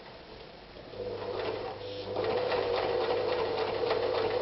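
Privileg Super Nutzstich 314 domestic sewing machine starting up about a second in and stitching through leather with a steady motor hum and needle clatter, picking up speed and getting louder about two seconds in. It feeds smoothly, running nicely without stalling.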